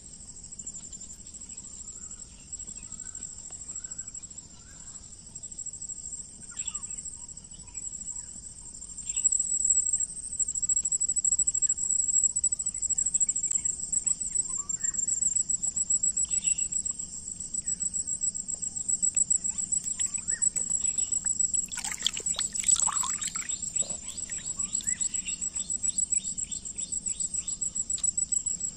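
Insects trilling steadily in a high, fast-pulsing chorus that grows louder about a third of the way in, with scattered short bird chirps and one brief louder call about two-thirds of the way through.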